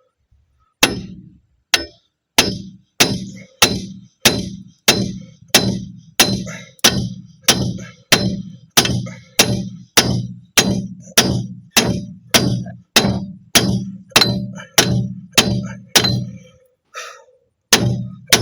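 A hammer striking metal over and over, about three blows every two seconds, each one ringing briefly. There is a short pause near the end before the blows start again.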